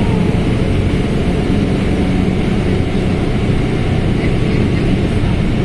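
Mercedes-Benz OF1721L bus's diesel engine running steadily with a constant low drone.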